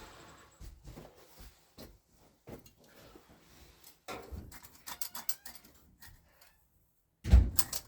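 Scattered light clicks and rattles of parts being handled, with a quick run of clicks about five seconds in and a heavy thump near the end.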